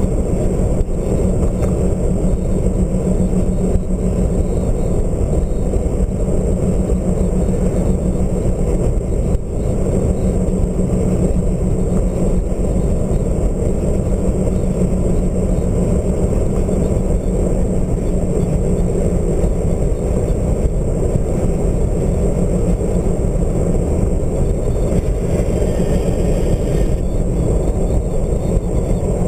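Steady low rumble of a car driving at speed, with tyre, engine and wind noise heard from inside the cab.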